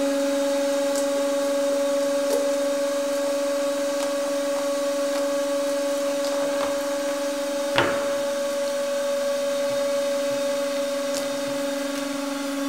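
Hydraulic press running with a steady hum as the ram slowly loads a steel helmet. A single sharp crack comes about eight seconds in as the helmet and the cabbage under it are squeezed.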